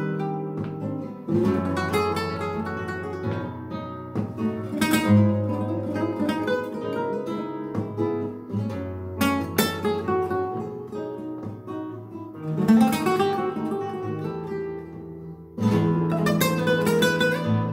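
Two flamenco guitars playing a duet, a picked melody over chords, punctuated by several sharp strummed chords; the playing eases off briefly near the end, then comes back in loudly.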